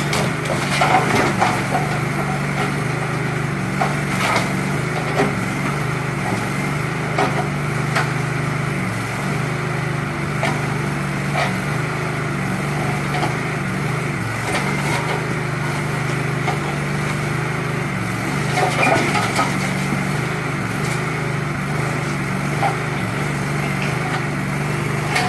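Backhoe engine running steadily while the wooden shed's boards crack and splinter under the bucket, with scattered sharp cracks throughout.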